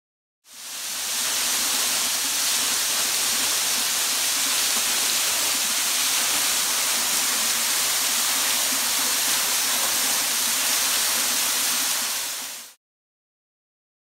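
Steady rushing hiss of a straight-drop waterfall pouring onto rocks, strongest in the high range. It fades in shortly after the start and cuts off suddenly near the end.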